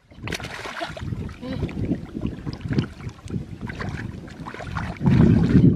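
A large fish thrashing and splashing in shallow, muddy water, with a louder burst of splashing near the end.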